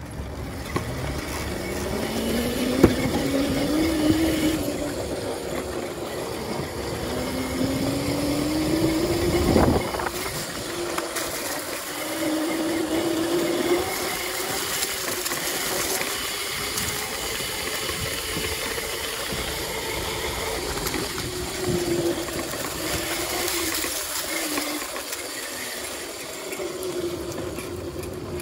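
Small dirt bike being ridden: its motor note rises as it accelerates, twice in the first ten seconds, then holds a steadier pitch with small rises and dips. Wind rushes over the microphone throughout, and there is a sharp knock about ten seconds in.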